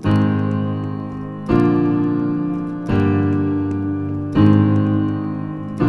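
Keyboard playing held chords, a new chord struck about every one and a half seconds, four in all, each left ringing and fading slowly.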